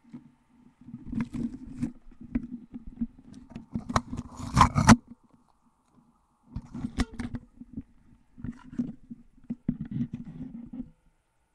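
Handling noise from a webcam being picked up and turned around: irregular rubbing and scraping on its microphone with sharp knocks, in two spells with a short pause just before the middle, loudest around five seconds in.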